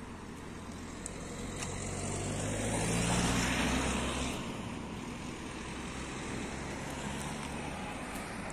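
A car passing by: engine and tyre noise swell to a peak about three seconds in, then fade, over steady street traffic noise.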